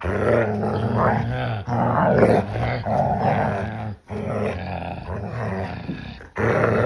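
Doberman pinscher growling while biting and tugging at a person's shoe, in long, steady growls with brief breaks, about four in all.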